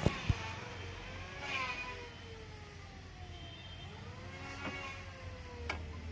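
Vehicle engines passing in street traffic, their pitch sliding slowly up and down over a low steady hum, with sharp clicks near the start and twice near the end.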